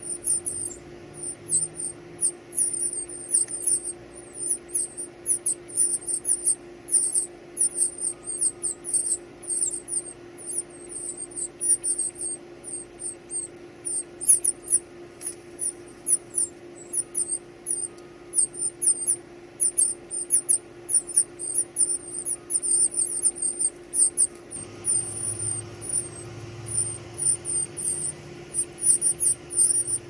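Northern cardinal nestlings begging at the nest: a continuous stream of rapid, very high-pitched squeaky calls, several a second, as the parents feed them. A faint steady low hum runs underneath.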